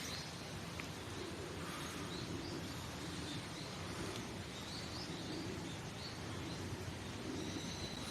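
Quiet outdoor ambience: a steady low hiss with faint, short bird chirps now and then.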